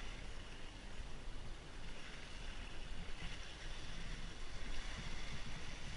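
Wind buffeting the microphone in an uneven low rumble, over a steady hiss of water rushing along a sailboat's hull as it sails under spinnaker.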